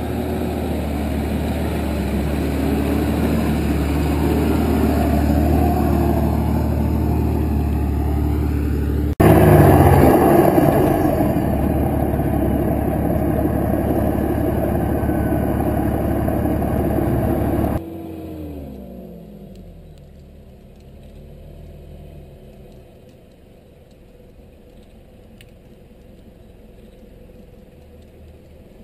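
Four-wheel-drive engines running hard on rough dirt tracks, loud and steady. About nine seconds in, it cuts to a louder stretch of engine, tyre and wind noise. Near eighteen seconds, it cuts again: the sound drops sharply with a falling engine note, and a fainter engine keeps running.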